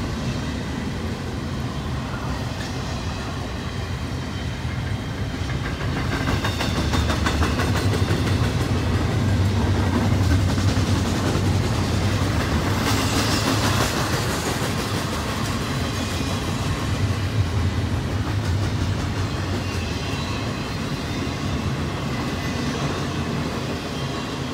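Intermodal freight train cars rolling past on steel wheels, a steady rumble with rapid clicking over the rail joints. It grows louder about six seconds in and eases off near the end.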